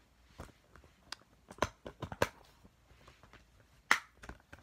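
Plastic Blu-ray case being handled and closed: a scattering of sharp clicks and taps, the loudest near the end.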